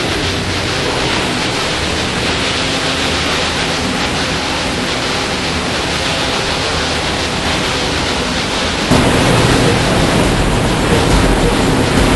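Steady machinery noise in a ship's engine room, a dense even roar. About nine seconds in it turns suddenly louder and deeper, with a low hum.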